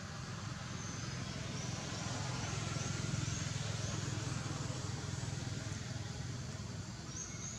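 Steady low outdoor rumble that swells toward the middle and eases off again, with a run of short, faint high chirps from about a second in and a couple more near the end.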